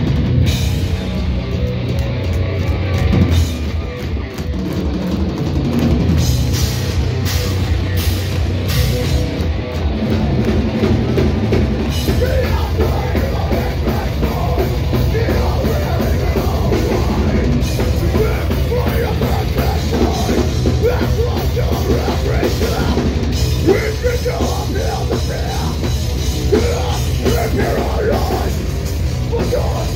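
A metalcore band playing live and loud: distorted electric guitars and bass over a pounding drum kit. From about twelve seconds in, a vocalist screams over the music.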